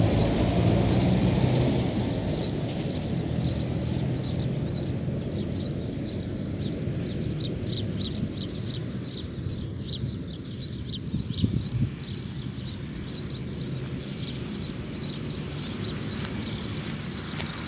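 Many small birds chirping, short calls repeating rapidly in a dawn chorus, over a low rumble that is strongest at the start and eases within the first two seconds.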